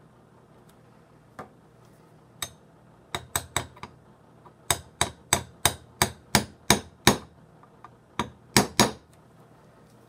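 Light hammer taps on the antique Garantie coffee grinder's top as it is reassembled: a few scattered taps, then a run of about eight even taps, roughly three a second, and two harder blows near the end.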